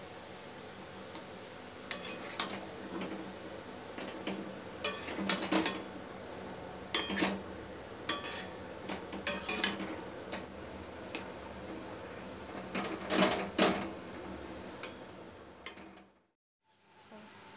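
Metal spatula scraping and knocking against a frying pan while stirring and mashing a potato filling, in irregular clusters of scrapes over a steady background hiss. The sound fades out briefly near the end.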